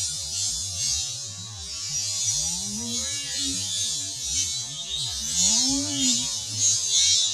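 Steady, high-pitched drone of insects in the forest, likely cicadas, with a few short low tones that rise and then fall again.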